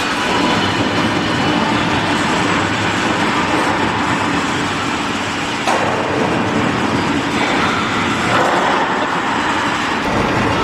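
Loud, steady machinery noise of a factory workshop, a dense rumble and hiss that changes character about six seconds in.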